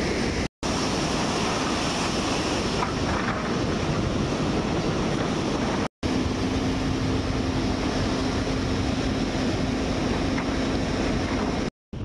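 Ocean surf breaking on a beach, with wind on the microphone, as a steady loud rush. The sound cuts out briefly three times, and a low steady hum runs through the second half.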